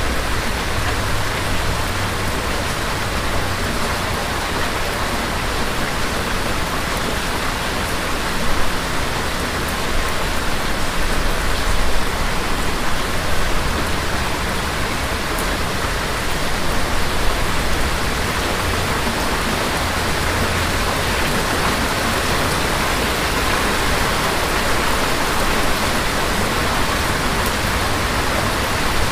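Steady rain falling, with a low rumble of distant thunder swelling and fading at times.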